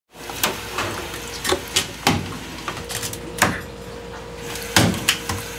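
A heavy kitchen knife chopping raw gazami (swimming) crabs on a wooden cutting board: about ten sharp knocks at irregular intervals as the blade cracks through shell and strikes the board. A faint steady hum runs underneath.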